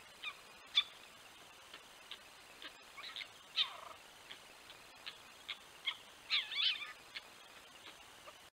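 Red fox pups calling from inside their den: a scattered string of short, faint, high squeaks and whines. A longer falling whine comes a little under halfway through, and several pups call over one another a little past the middle.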